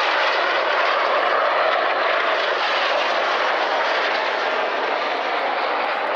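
Jet noise of two Red Arrows BAE Hawk T1 jets, each with a single Rolls-Royce Adour turbofan, passing low in opposite directions: a steady rushing sound that slowly fades.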